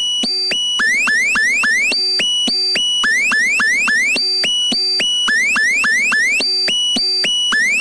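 Electronic emergency-alert tone of the kind that opens a mock EAS broadcast. Short steady high beeps alternate with runs of about three quick upward-sweeping chirps a second, and the pattern repeats about every two seconds.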